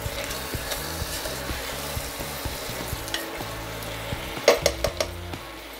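Chicken curry base of chicken pieces, onion and tomato sizzling in oil in a pressure cooker while a spoon stirs and scrapes through it. A few louder knocks come about four and a half seconds in.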